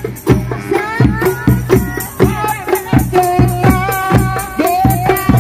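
Hadroh ensemble of rebana frame drums and a mallet-struck bass drum playing a fast, steady, interlocking beat, with a voice singing a sholawat melody over it from about a second in.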